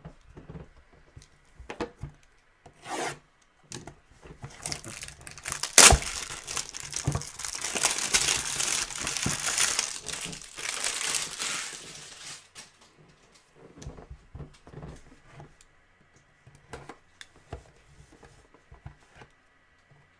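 Plastic wrap being torn and crinkled off a sealed box of trading cards, with a sharp snap about six seconds in and then a long stretch of crinkling. Lighter rubbing and handling of the box follows.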